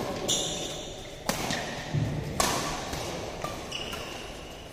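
Doubles badminton rally: sharp racket strikes on the shuttlecock about a second apart, with a thud of footfalls on the court, echoing in a large hall.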